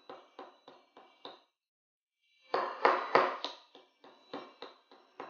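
Hammer tapping a nail against the base of an upturned ceramic bowl to punch a drainage hole through it. The light taps come about three a second, each with a short high ring. They fall in two runs with a pause of about a second between them, and the strongest taps come about three seconds in.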